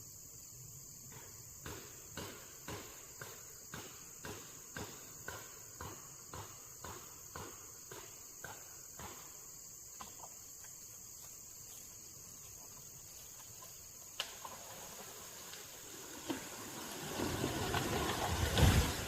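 Insects trilling steadily in a high, even chorus. Over it, a run of regular soft thuds about two a second fades out after about ten seconds, and near the end a louder rustling, rumbling noise swells.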